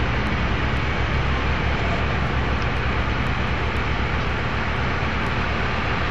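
Cummins diesel engines of a truck-mounted Texoma Taurus auger drilling rig running steadily, powering the rig's hydraulics.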